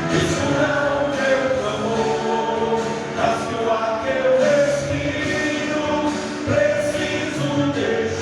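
Gospel worship singing over instrumental accompaniment, with voices holding long sung notes.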